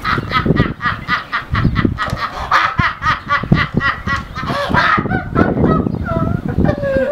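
A man laughing uncontrollably in loud, rapid, high-pitched bursts, several a second, with short breaks for breath.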